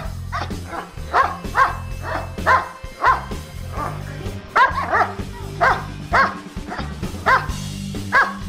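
German Shepherd giving a run of short, sharp barks, about twice a second with a brief pause in the middle. They are protective warning barks at a hand reaching toward the person it is lying beside.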